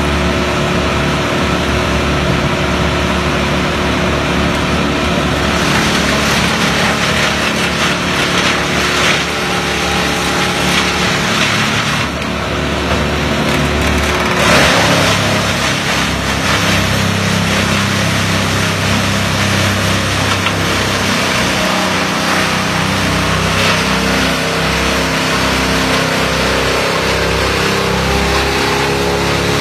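Tow-behind brush chipper's engine running steadily at speed, with a harsher grinding noise from about six seconds in to about fifteen seconds as sycamore branches are fed through and chipped.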